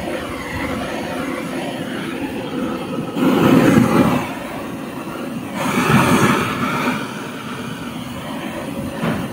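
Handheld butane torch on a gas canister burning steadily as its flame is played over the inside of a wooden beehive box, scorching out wax moth larvae and eggs. The noise swells louder twice, about three and six seconds in.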